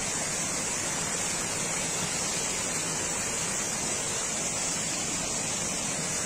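Storm runoff rushing and cascading over rocks and landslide debris, a steady, unbroken rush of water.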